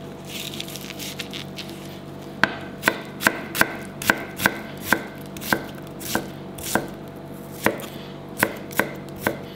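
Kitchen knife chopping vegetables on a cutting board. It starts a couple of seconds in and runs at about two sharp strokes a second, each with a short ringing tick.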